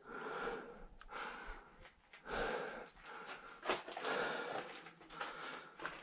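A person breathing hard in short, irregular breaths, with scraping and shuffling of clothes and hands against the rock as he slides down a cramped cave passage, and one sharp knock in the middle.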